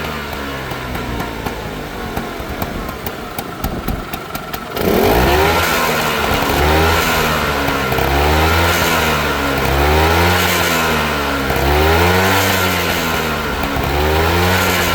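Vespa SS180's single-cylinder two-stroke engine dropping to a low idle with a fast clicking rattle, which the owner takes for piston slap. About five seconds in it is revved, then blipped up and down about every two seconds.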